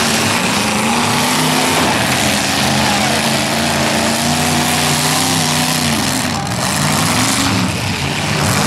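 Big eight-cylinder demolition derby car engines running and revving under load as the cars push against one another. The engine pitch rises and falls over several seconds.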